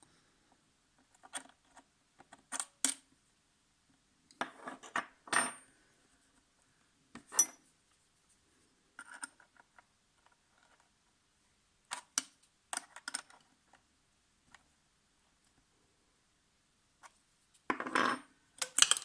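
A metal tool clinking and tapping against the screw and metal parts of a vintage Necchi sewing machine while the feed dog adjustment screw is tightened. The clicks are sharp and scattered, a few ring briefly, and a denser clatter of handling comes near the end.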